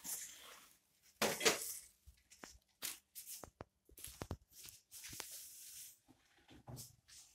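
Plastic wrapping and cardboard packaging rustling and crinkling as a two-burner gas stove is handled out of its box: irregular rustles broken by small sharp clicks and knocks.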